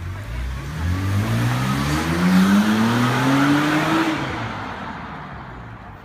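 BMW X5 3.0i's inline-six engine revving: the pitch climbs steadily for about four seconds, then the throttle is released and the sound dies away.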